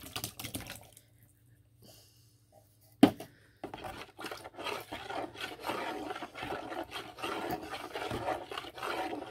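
A sharp knock about three seconds in, then several seconds of continuous scraping and rubbing of a kitchen utensil against a dish as fruit is added to a bowl of jello.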